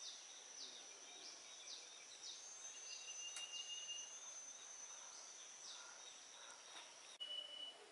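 Faint outdoor ambience: a steady thin high whine with quick falling chirps repeating about twice a second, and a brief sharper chirp near the end.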